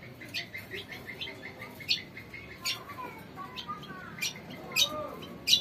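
Caged cucak kombo calling: a quick run of short chirps, broken by sharp, loud whistled notes that come louder and closer together near the end.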